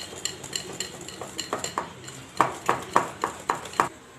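A utensil beating butter and powdered sugar to a cream in a bowl by hand. It knocks and clinks against the bowl about three times a second, with harder strokes in the second half, and stops just before the end.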